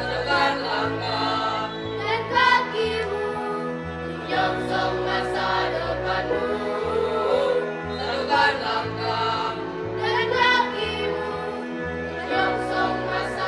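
Mixed school choir of boys and girls singing a song together in harmony, over an instrumental accompaniment with a bass line that changes note about once a second.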